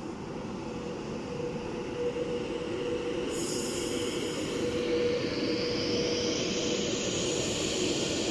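Class 390 Pendolino electric train moving off along the platform, its traction motors giving a whine that rises in pitch as it gathers speed, over a steady rumble from the train. There is a brief hiss about three seconds in.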